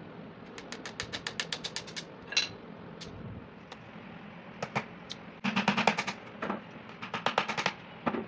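Hand tools tapping and clicking against PVC pipe and fittings: quick runs of light, sharp taps, about eight a second, in several bursts with single taps between.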